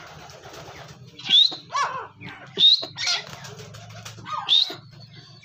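Young grey francolin giving short, sharply rising chirping calls, three loud ones about a second and a half apart, with fainter chirps between.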